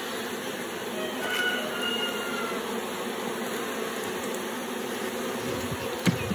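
Steady buzzing hum of a honeybee colony swarming over an open nucleus hive. Near the end comes a single sharp click.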